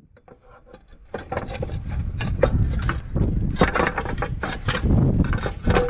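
Clay roof tiles being handled and settled back into place, a quick run of scrapes and knocks of fired clay against clay that begins about a second in.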